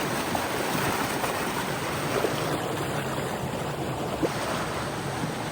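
Arroyo Seco Creek water rushing steadily, an even hiss with no let-up, with a couple of faint ticks about two and four seconds in.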